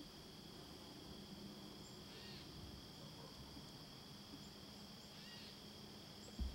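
Steady high-pitched chirring of crickets or other insects, with a faint call repeating about every three seconds and a single dull thump near the end.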